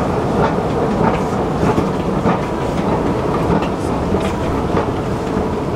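Loud, steady rumble of a metro station with light regular ticks about every 0.6 s, like footsteps on a hard floor.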